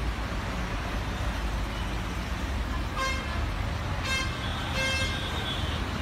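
Steady outdoor street noise with a low rumble, broken by a vehicle horn tooting three short times, about three, four and five seconds in.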